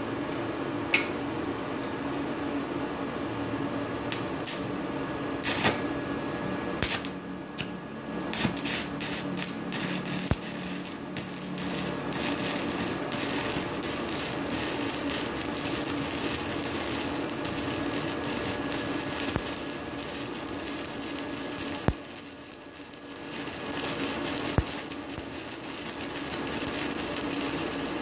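Stick (MMA) welding arc from a MultiPro MMA 200 G-JB IGBT inverter welder burning a 4 mm electrode, crackling and sizzling steadily. There are sharp snaps near the start and again later. About 22 seconds in the arc drops off briefly, then picks back up.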